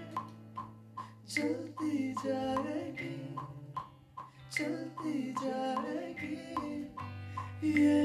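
Rock band music: a man singing over a steady percussion beat, guitar and a held bass note.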